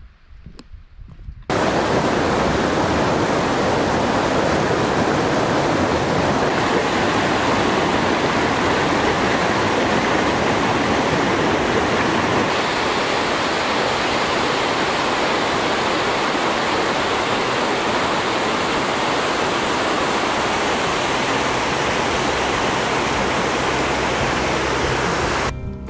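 Rushing water running loud and steady, cutting in suddenly about a second and a half in.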